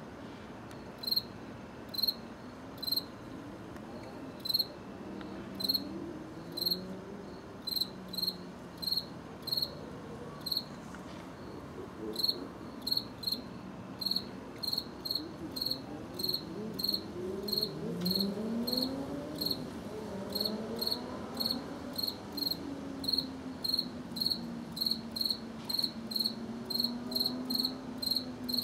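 A cricket chirping in short, evenly spaced high chirps, about one to two a second and coming faster later on. A faint low drone rises and falls in pitch beneath it.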